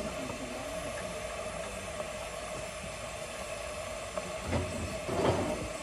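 RHDR 4-6-2 steam locomotive Northern Chief simmering on a turntable, steam hissing steadily. Two louder knocks come near the end.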